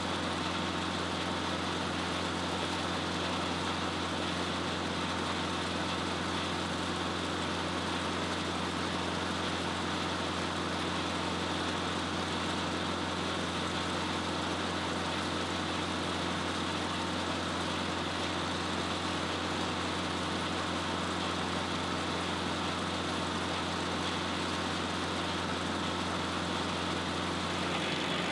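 Diesel engine of a Bandit Model 90XL wood chipper running at a steady speed, an even, unchanging engine note.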